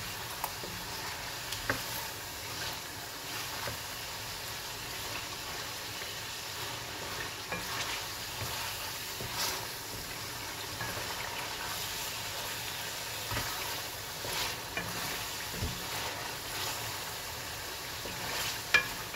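Chicken pieces sizzling in oil in a karahi while being sautéed (bhuna) with ginger-garlic paste and spices. A wooden spatula stirs them, scraping and tapping against the pan now and then, with a sharper knock near the end.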